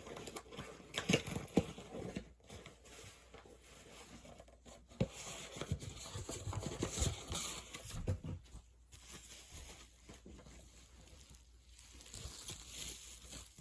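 A package being opened by hand: packaging tearing and crinkling, with irregular rustles, clicks and knocks of handling.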